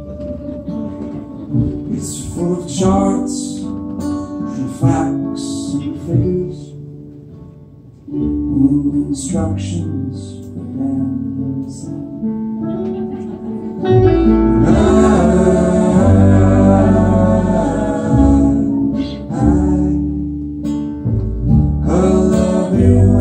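Live acoustic folk band: a man singing over strummed acoustic guitar and upright bass. The music gets louder and fuller a little past the middle.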